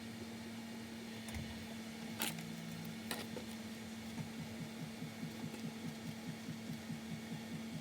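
A few small sharp clicks from handling small parts during phone repair, over a steady low electrical hum. About halfway through, a soft regular pulsing starts at about four beats a second.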